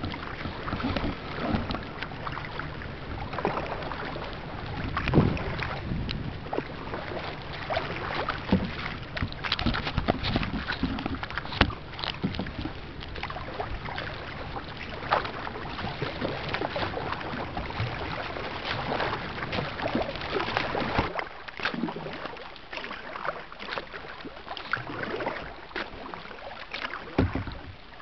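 Kayak on open river water: splashing and lapping of water with irregular knocks against the boat, over a low rumble of wind on the microphone that drops away about 21 seconds in.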